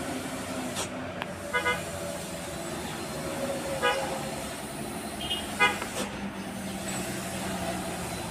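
A few short vehicle horn toots, in ones and twos, over the steady running of passing traffic engines.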